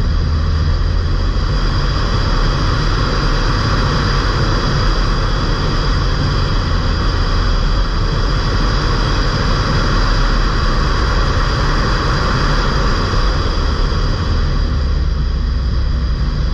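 Ford Fiesta mk8's 1.5 TDCi four-cylinder turbodiesel, stage 1 remapped, driving at a steady pace: a loud, even rumble of engine and road noise with a constant hiss over it.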